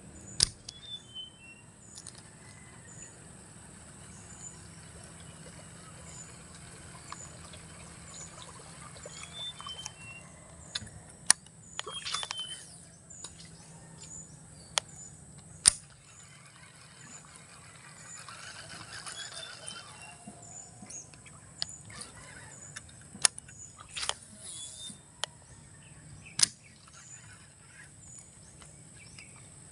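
Creekside ambience: a steady high insect drone, with a bird repeating a short call of three or four falling notes. A few sharp clicks, the loudest sounds, and two brief rustles come from fishing tackle being handled.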